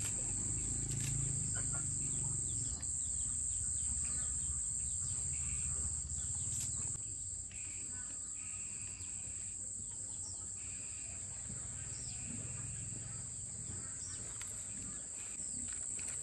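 Insects droning steadily at a high pitch, with a few short chirps in the middle.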